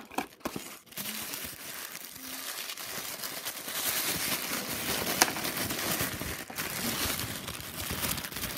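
Thin white wrapping from a toy blind box being crinkled and pulled open by hand: a continuous rustling crackle that grows louder a few seconds in.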